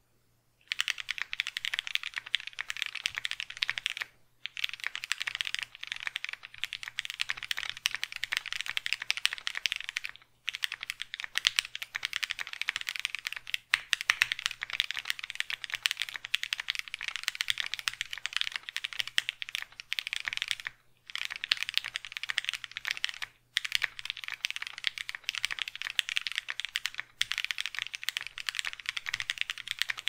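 Continuous fast typing on a 60% mechanical keyboard fitted with Gateron-made Keyfirst Cream linear switches lubed with 205g0: dense runs of keystroke clacks broken by short pauses every few seconds.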